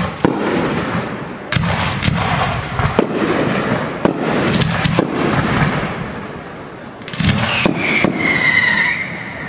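Aerial firework shells bursting: a string of sharp bangs about a second apart, each followed by crackle and rumble, with a high falling whistle near the end.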